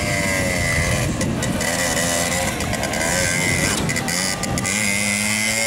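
Small two-stroke motorcycle engine running at low speed as the bike is ridden slowly, its revs rising and falling. It settles to a steady low note near the end.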